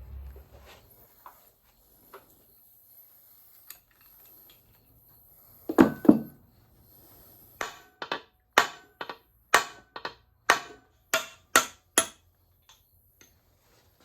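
Hammer blows on a Warner T9 gearbox's parts during teardown: a heavy double thud about six seconds in, then a run of about ten sharp knocks over four seconds, two or three a second.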